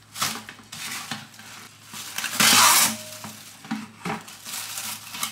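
Plastic cling film crinkling and rustling as it is stretched over a stainless steel bowl and pressed around the rim, with one short loud rip about halfway through as the sheet is torn off the roll.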